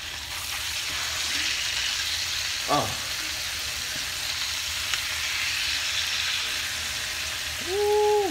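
Pork chops frying in a skillet, a steady sizzle throughout. A short falling vocal sound comes about three seconds in, and a held vocal tone near the end.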